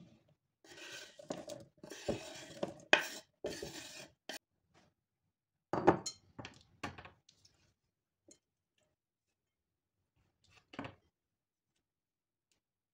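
Kitchen dishes and utensils clattering and clinking in uneven bursts, with the sharpest knocks about three seconds and six seconds in, then a couple of lighter clinks later on.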